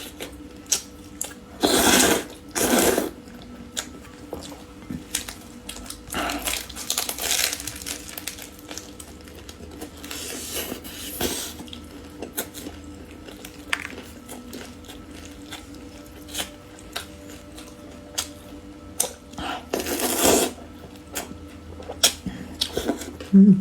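Close-miked eating sounds of spicy noodles and side dishes: frequent small clicks of utensils against dishes, broken by several louder noisy mouth sounds of about a second each, around two, seven, eleven and twenty seconds in.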